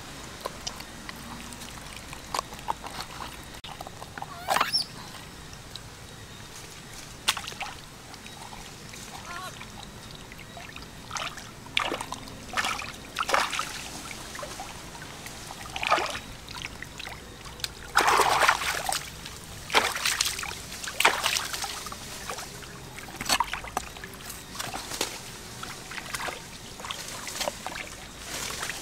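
Wet, irregular squelches and splashes of a large fish being gutted and handled by hand, with scattered sharp knife clicks on a wooden chopping board.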